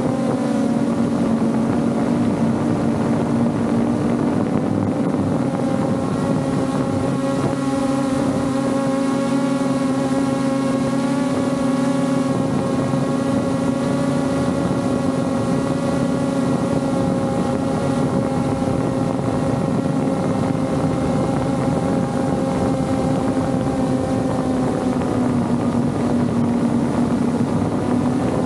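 Quadcopter drone's propellers and electric motors running in flight: a steady hum with several pitches that waver and drift slightly as the motors adjust speed, with a little wind noise on the microphone.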